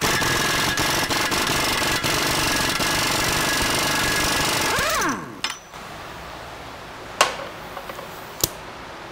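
Impact wrench hammering on a front axle nut with a 32 mm socket, rattling steadily for about five seconds before winding down with a falling whine. Two sharp clicks follow later.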